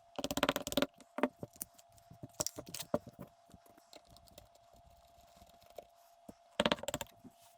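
Small metal clicks and rattles from handling the parts of a GHK G5 gas-blowback airsoft rifle, with a quick rattling run of clicks at the start and another near the end and scattered single clicks between.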